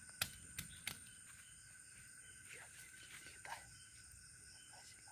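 Faint steady night insect chorus, with three quick sharp taps in the first second.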